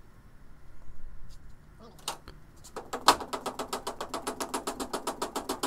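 Rapid, even light hammer taps, about six or seven a second, from an orange-headed hammer striking the lathe's end bearing block to knock it loose, with one harder blow about three seconds in.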